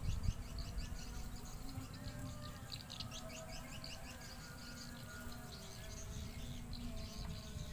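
Small birds chirping in quick runs of short, high calls, over a low steady rumble.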